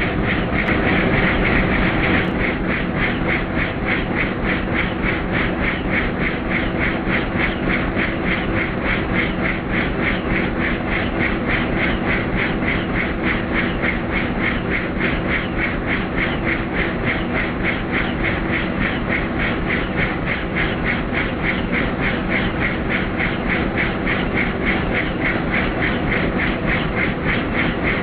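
Helicopter in flight: a fast, even chop of the rotor blades over a steady engine drone.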